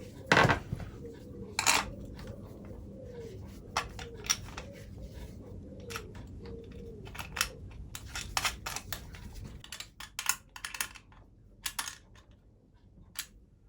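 Scattered clicks and knocks of a bicycle and hand tools being handled, with a loud knock just under half a second in. A low steady hum runs underneath and stops about ten seconds in.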